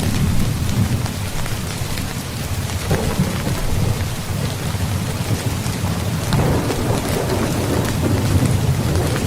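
Steady rain falling, with thunder rumbling low underneath. The rumble swells about two-thirds of the way in.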